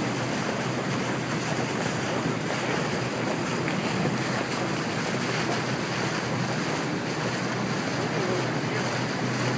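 Steady rush of wind and water, with wind noise on the microphone.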